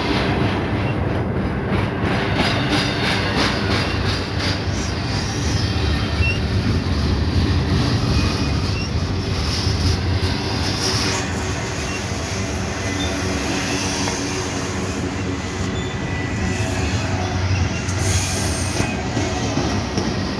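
Freight train rolling past: a loud, steady rumble of steel wheels on the rails with thin high-pitched wheel squeals, and a quick run of evenly spaced clicks over the rail joints in the first few seconds.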